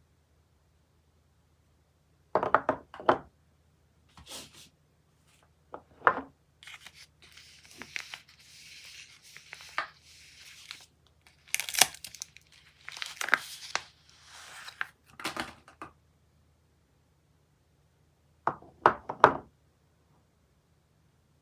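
Soap packaging being unwrapped by hand: wrappers crinkling and tearing in short bursts, with a longer stretch of continuous rustling and tearing in the middle and brief pauses between handlings.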